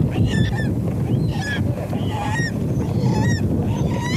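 A freshly trapped falcon calling over and over in harsh, honking cries, about two a second, over a steady low rumble.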